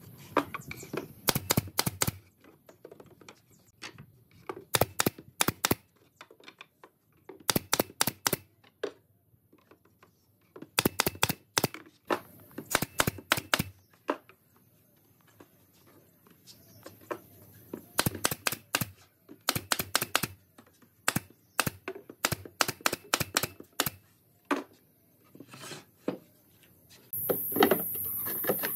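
Pine hive-box parts being fitted together on a workbench: bursts of three to five sharp wooden clicks and knocks in quick succession, repeating every few seconds. Near the end a steady hiss comes in.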